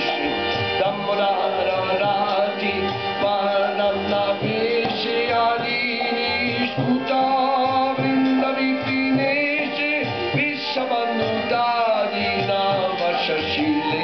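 A man singing a Hindu devotional bhajan to his own harmonium. The harmonium holds steady reed chords under a gliding sung melody, with a regular low drum beat underneath.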